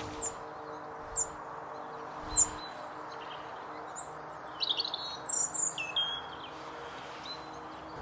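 Small wild birds calling: a few short high chirps in the first two or three seconds, then a burst of twittering song with falling notes about four to six seconds in.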